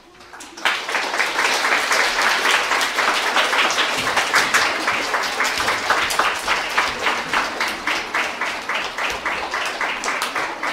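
Audience of children and adults applauding, starting suddenly about a second in.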